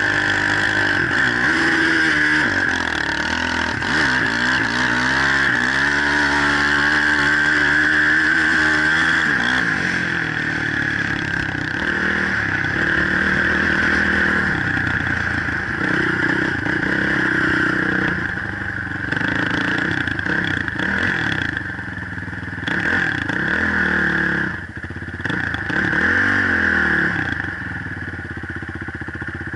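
Multirotor drone's motors and propellers whining steadily, with a lower engine-like pitch that keeps rising and falling as the drone speeds up, slows and climbs.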